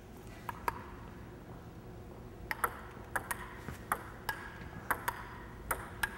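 Celluloid table tennis ball clicking off the table and the paddles: two light clicks near the start, then a rally from about two and a half seconds in, bounce and hit following each other about every half second.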